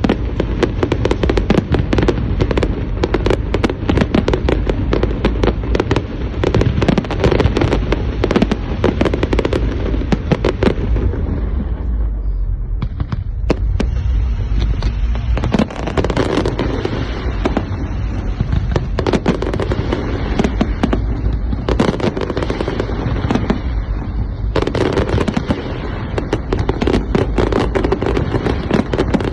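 Fireworks display going off continuously: a dense stream of rapid crackling bangs and pops over a steady low rumble of bursts.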